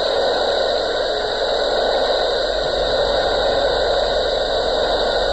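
Steady hiss of a scanner radio receiver. The long-distance sporadic-E signal has faded into static, and no voice or music comes through.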